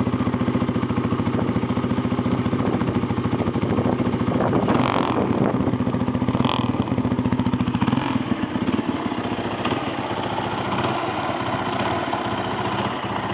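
1991 Honda XR200's air-cooled single-cylinder four-stroke engine running at a steady speed, exhaling through a muffler with its inner silencer fitted. About eight seconds in it turns a little quieter and less even.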